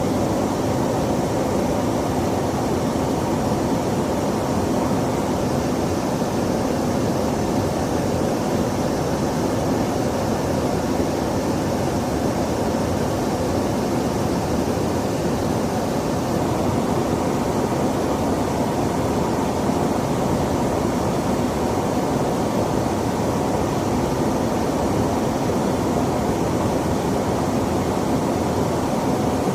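Steady, unbroken noise of a KC-135 Stratotanker in flight, its engine and airflow noise with no breaks or changes.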